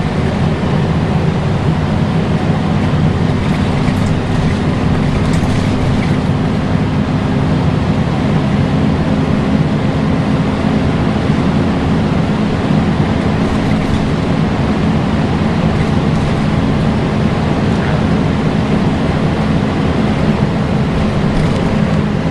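Volvo B10BLE single-decker bus heard from on board: a steady loud drone from the diesel engine and its cooling fan, the vacuum-cleaner-like 'hoover' whine that these buses are known for, over road and body noise. The pitch holds level throughout.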